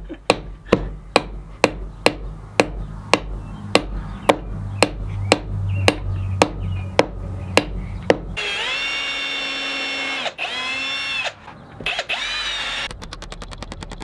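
Claw hammer driving a nail into a wooden birdhouse roof, striking about twice a second, with uneven blows. After about eight seconds this gives way to a steady pitched tone lasting about four seconds, then a quick run of rapid ticks near the end.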